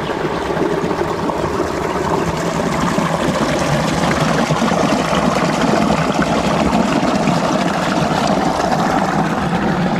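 Stream water flowing and splashing in a steady, loud rush with a busy, uneven churn.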